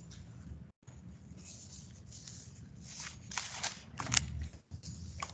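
Scattered rustling and clicking handling noises picked up by an open video-call microphone, over a low steady hum. The audio cuts out completely for a moment just under a second in.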